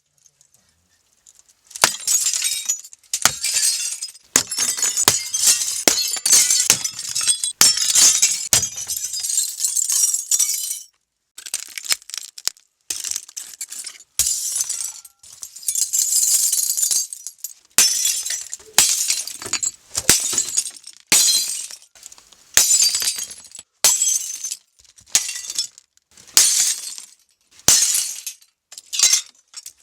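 Glass being smashed over and over, a string of sharp breaks with high-pitched shattering and tinkling shards falling after each, in bursts with short pauses between.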